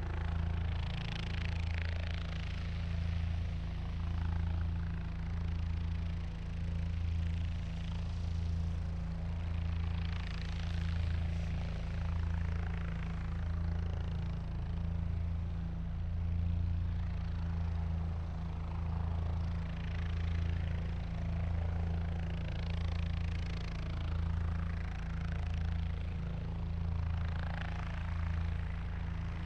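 Helicopter running steadily, a low engine hum pulsing in an even rhythm under a broad rushing hiss that swells and fades every few seconds.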